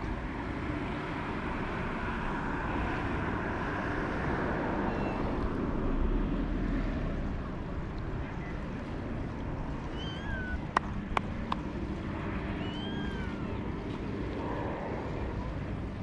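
Steady outdoor background noise with wind on the microphone. A few short, high chirping calls come a little past the middle, and two sharp clicks come just before them.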